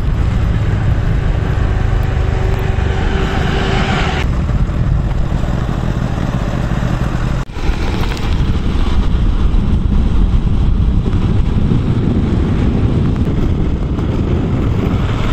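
Motorcycle riding along a road, its engine running under heavy wind rushing over the microphone. The sound drops out for a moment about seven and a half seconds in.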